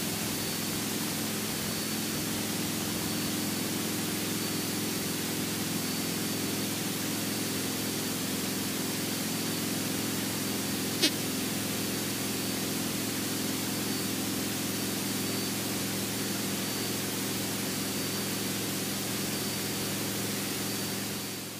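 Steady static hiss over the low, even drone of the Cessna 172's piston engine, with one sharp click about eleven seconds in. The sound fades out near the end.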